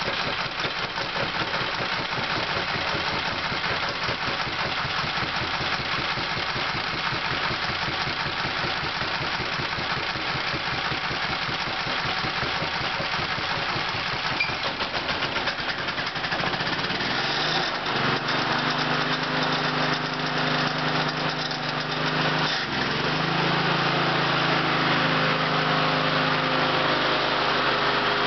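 Small lawn mower engine starting up and running, with a rapid, even firing beat. About seventeen seconds in, its note changes and steadies, and near the end it runs a little louder.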